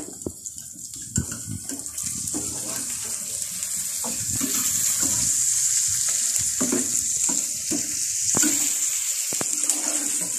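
Sliced karela (bitter gourd) and onions sizzling steadily in a frying pan, stirred with a plastic slotted spatula that scrapes and clicks against the pan now and then.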